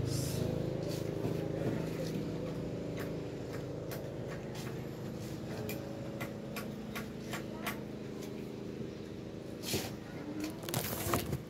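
Steady low hum with scattered light clicks and ticks throughout, and a brief louder noise near the end.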